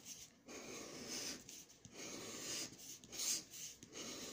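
Scratch-off lottery ticket being scratched: repeated rasping strokes across the ticket's coating, about one stroke a second.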